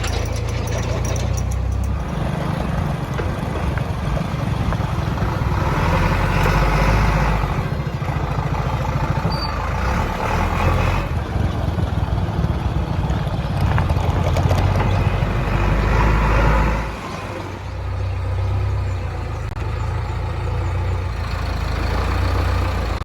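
Heavy diesel engine running steadily, surging to a harsher, busier sound three times as it works.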